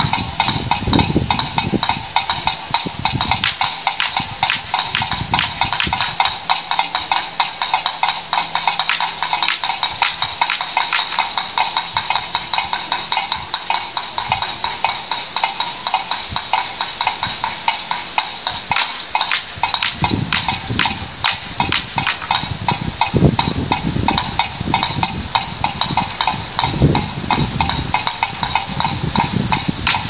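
Bird-scaring windmills clacking: wind-turned clappers knocking in a rapid, steady run of strikes, several a second, each with a ringing tone, a noise meant to scare birds off the rice.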